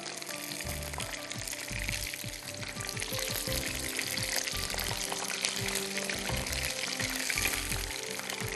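Battered chicken pieces deep-frying in hot oil: a steady sizzle with crackling pops. Background music plays softly underneath.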